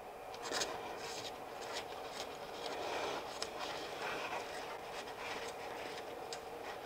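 Paring knife scraping and lifting the skin off a hot boiled potato held in a paper towel: quiet, irregular scraping with soft paper rustling and small clicks.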